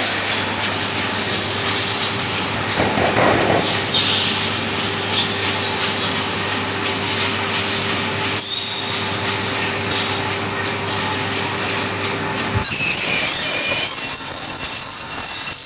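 Metal-cutting saw running with a steady hum. Near the end its blade cuts into an aluminium scaffolding profile, and a louder, high, steady screech takes over.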